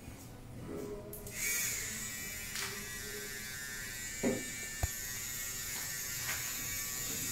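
A small handheld electric machine switches on about a second in and buzzes steadily, with two short knocks near the middle.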